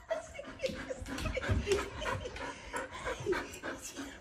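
Golden retriever panting and sniffing close by, mixed with a man's quiet chuckling.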